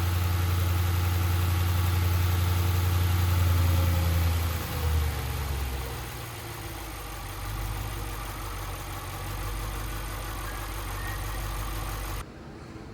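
Audi RS6 C7's freshly rebuilt twin-turbo V8 idling steadily. Its idle drops to a lower, quieter hum about five seconds in, and the sound cuts off abruptly near the end.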